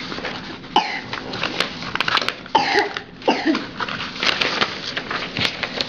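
Loose sheets of paper rustling and sliding against each other as a hand shuffles through a pile, with irregular crackles and several short swishes.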